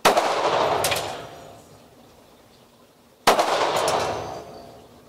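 Two shots from a Springfield Armory Champion Operator 1911 .45 ACP pistol, about three seconds apart, each ringing on for about a second in the enclosed indoor range. A short sharp clink comes a little under a second after each shot.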